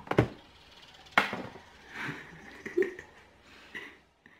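Two sharp knocks about a second apart, with quiet laughter in between.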